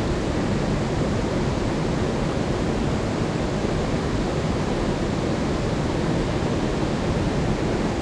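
Steady rushing of a fast mountain stream's water, an even roar that holds level throughout.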